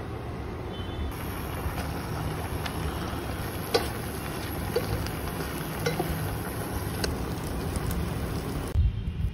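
Pot of pasta, zucchini and mushrooms simmering on the hob, with a few sharp clicks of wooden chopsticks against the stainless steel pot as it is stirred.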